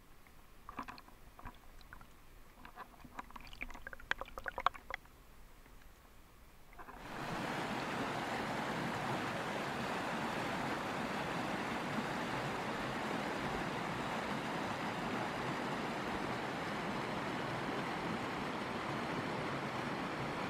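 River water rushing over rocks in a rapid: a steady rush of white water that starts about seven seconds in and stays even. Before it, only faint scattered clicks.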